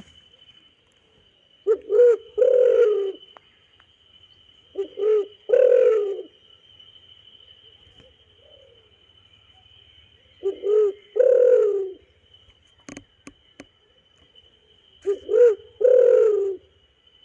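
Spotted dove (tekukur) cooing: four calls, each two short coos followed by a longer coo, repeated every three to five seconds. A thin steady high-pitched tone runs underneath, and a few sharp clicks come about two-thirds of the way through.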